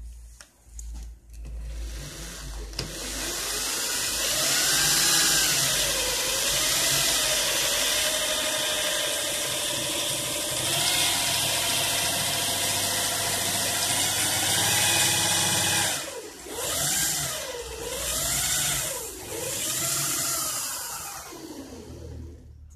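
Volkswagen 70 A car alternator spun up fast while generating into a small test bulb, with its voltage regulator bypassed. It makes a whine with a rushing fan hiss, steady for most of the run. Near the end the speed drops and surges several times, so the whine swoops down and up.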